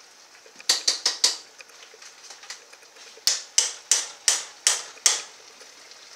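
A run of sharp, ringing knocks as tomato paste is knocked out of small cans into a pan of meat sauce: four quick knocks about a second in, then six more, about three a second.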